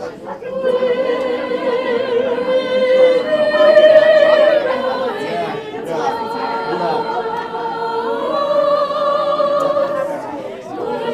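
A choir singing a Christmas carol in slow, long held notes that step up and down in pitch.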